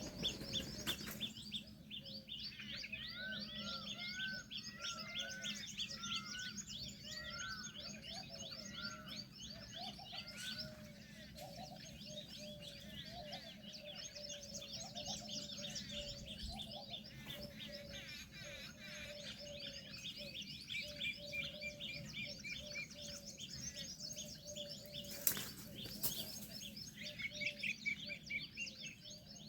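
Dense chorus of many birds chirping and calling at once, with rapid high twittering and repeated lower whistled notes. A single sharp click comes near the end.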